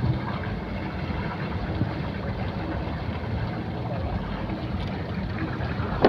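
Steady low drone of a small engine running, with some wind on the microphone. One sharp click near the end.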